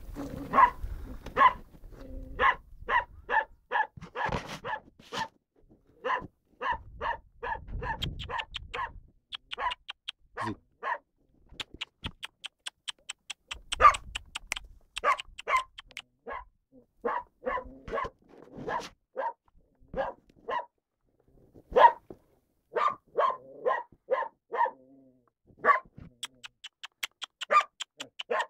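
A dog barking over and over in quick runs of several barks, with short gaps between the runs.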